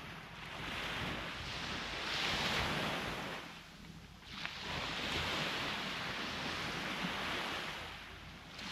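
Sea waves breaking and washing up the shore: two swells of surf with a short lull between them about halfway through, and a third wave starting to build near the end.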